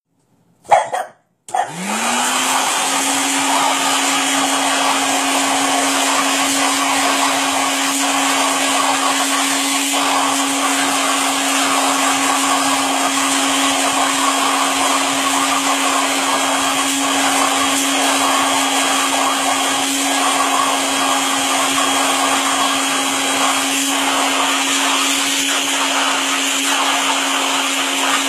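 Shop-Vac wet/dry vacuum switched on, its motor whining up in pitch to full speed within about a second and then running steadily with a loud rushing hum. Just before it starts there is a brief loud sound.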